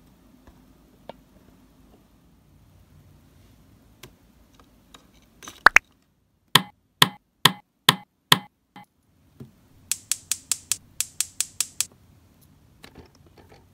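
Sharp clicks of small plastic miniature-kitchen toy parts being handled: one loud click, then five evenly spaced clicks about half a second apart, and after a short pause a quick run of about a dozen lighter, higher clicks.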